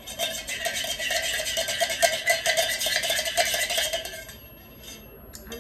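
Spoon stirring coffee in a cup, clinking rapidly against the sides with a ringing note, then stopping about four seconds in.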